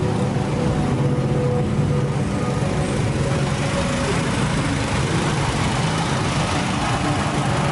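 Small portable generator engine running steadily with a low, even drone, powering the lights of a procession float.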